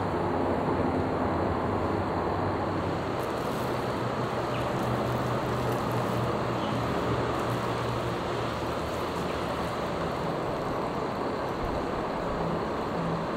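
Steady hum of distant road traffic. From about three to seven seconds in come faint scrapes of a wooden spoon stirring rice in a cup.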